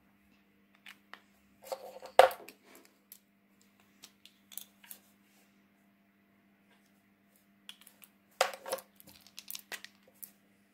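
Paint markers and paper being handled: sharp clicks of caps coming off and snapping on and markers set down, with short rustles of paper. The loudest click comes about two seconds in, and another cluster comes about eight seconds in, over a faint steady hum.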